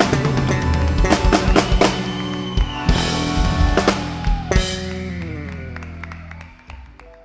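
Live band ending a milonga: a few sharp closing accents on drum kit and guitar, then a last chord left to ring and fade away.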